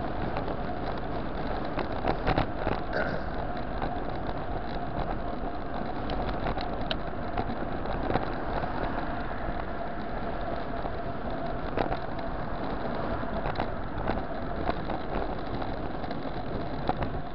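Bicycle rolling fast on asphalt at about 35 km/h: steady wind and tyre noise with a constant hum, and scattered light knocks and rattles from the road surface.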